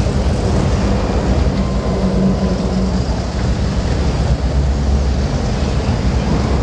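Motor yacht's engines running steadily at slow no-wake speed, with water noise around the hull; a low hum fades about three seconds in.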